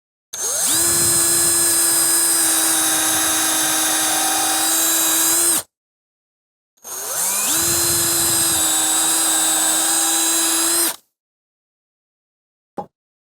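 Power drill running at steady speed in two spells of about five seconds each, each spinning up quickly at the start, followed near the end by a single short click.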